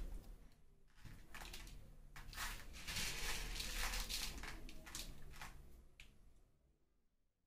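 Soft rustling and light clattering of kitchen handling around a pan of dry spices and lentils, in a run of quick strokes that fades out about six seconds in.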